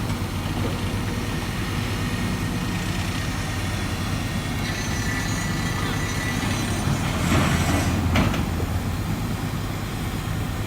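A tracked excavator's diesel engine running steadily under work. A thin high whine runs for a couple of seconds midway, and two short, louder surges of noise come near the end.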